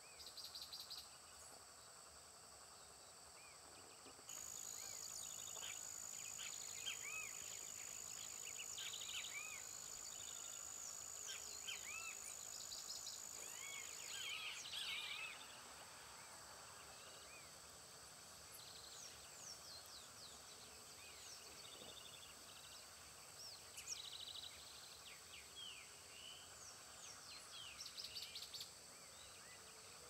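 Faint outdoor nature ambience: steady high-pitched insect trilling with many short bird chirps scattered through it, and now and then a brief rapid chirp train. A louder steady high tone comes in about four seconds in and stops about ten seconds later.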